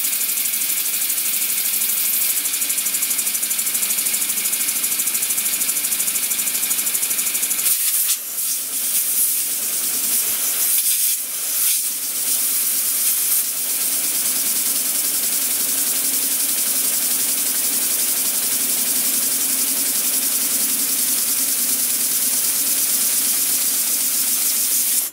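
Compressed air hissing through a small hand-built brass twin-cylinder model steam engine, which runs fast with a rapid even pulse from its cylinders. About a third of the way in the hiss dips and wavers for a few seconds, then runs steady again.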